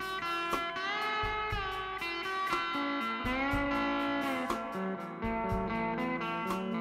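Background music: guitar-led instrumental with notes that bend in pitch, over a steady beat.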